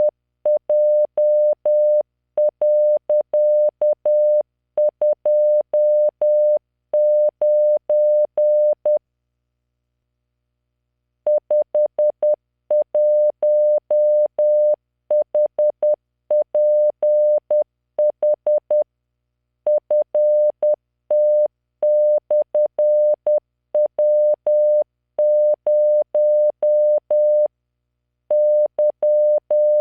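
Morse code at 10 words per minute: a steady 600 Hz computer-generated tone keyed in dots and dashes, sending random five-character practice groups. It pauses for about two seconds a third of the way in.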